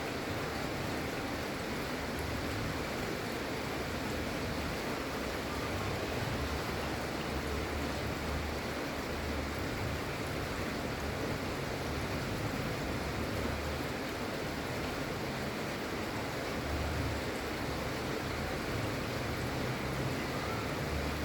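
Steady gentle rain, an even hiss of falling drops, with a low uneven rumble underneath.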